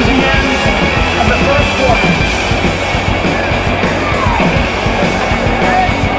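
Rock music with guitar over the steady din of a large football stadium crowd.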